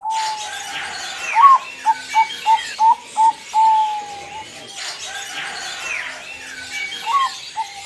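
Zebra dove of the Bangkok song strain cooing its phrase: a long note, a rising note, a quick run of about five short coos, then a long drawn-out final note, with the phrase starting again near the end. Other small birds chirp faintly behind it.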